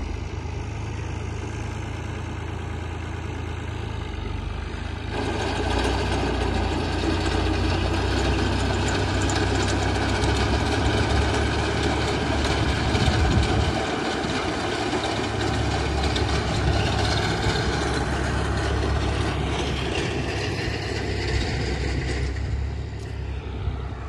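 Tractor driving a front-mounted wheat reaper through standing wheat: a steady engine drone with the noise of the cutting over it, louder from about five seconds in and dying down near the end.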